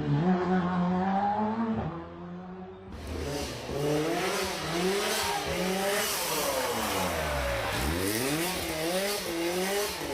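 Rally car engines revving hard through gear changes, the pitch climbing and dropping again and again. About three seconds in there is a cut to another car, heard over a noisy hiss.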